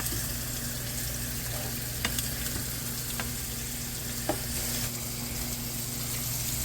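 Mustard-battered walleye fillets sizzling steadily as they fry in hot oil in a pan, with a few short sharp clicks through the middle.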